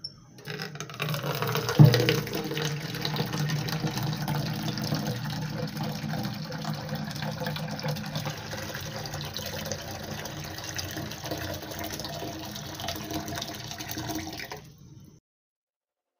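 Water running steadily, with a single knock about two seconds in; it cuts off abruptly near the end.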